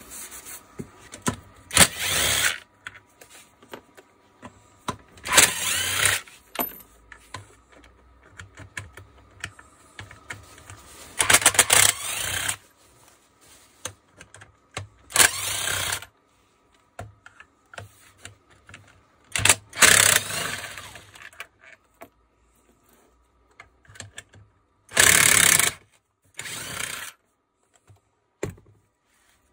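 Cordless impact driver backing screws out of a tool housing in about seven short bursts of rapid hammering, each around a second long, with small clicks and clinks of screws and tools between them.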